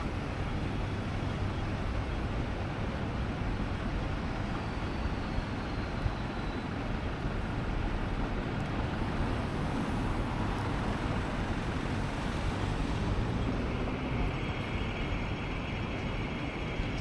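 Steady city street traffic noise: a continuous hum of passing vehicles, with a faint high tone joining in over the last few seconds.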